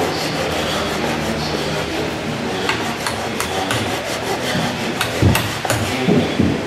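Hand tools working wood: a steady rubbing, rasping noise, with a run of sharp taps from about two and a half seconds in and a few heavier knocks near the end.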